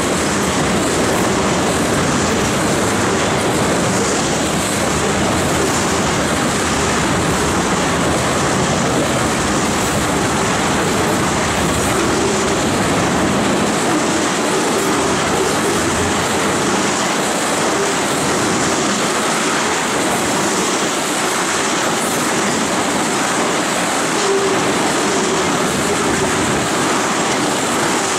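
Tank cars of an oil train rolling past at speed: steel wheels running loud and steady on the rails.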